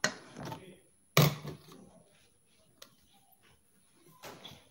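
Serving utensils scraping and knocking against a stainless-steel mixing bowl as a chopped salad is tossed. The loudest knock comes about a second in, followed by quieter scrapes, a single small click and a few more scrapes near the end.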